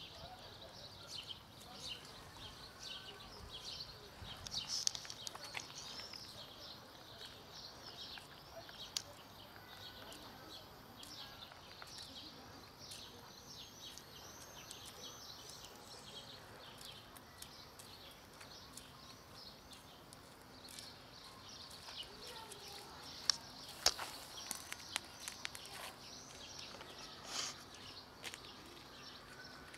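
Stray cat and kittens eating from plastic food containers: steady soft chewing and crunching of dry cat food, with a few sharp clicks and taps against the plastic, loudest twice in quick succession near the end. High chirping runs throughout in the background.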